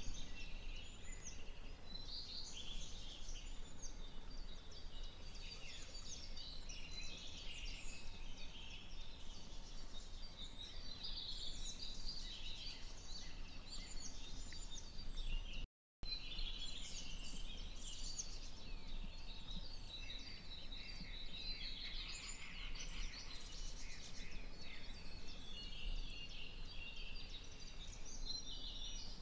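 Several songbirds singing at once, many short chirps and whistles overlapping without a break. The sound drops out for a split second about halfway through.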